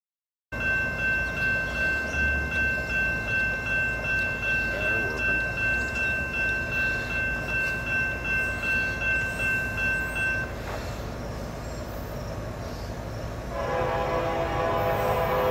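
Railroad grade-crossing warning bell ringing in a steady rapid beat, about twice a second, then stopping about ten seconds in. Near the end an approaching train's multi-chime horn sounds.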